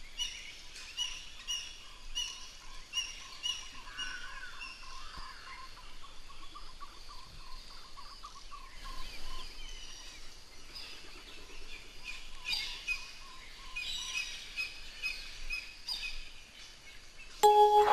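Forest birds calling: many short, repeated chirps and calls, with a thin held warbling note underneath for about the first half. A held musical note comes in just before the end.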